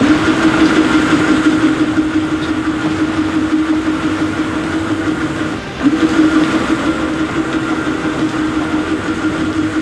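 Electric fishing reel motor whining steadily as it winds in line on a hooked tuna. It cuts out briefly about six seconds in, then starts again.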